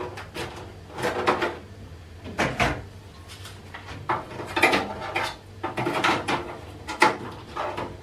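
Irregular clunks, clicks and scrapes of a cooker hood's metal and plastic parts being handled and fitted, some knocks ringing briefly.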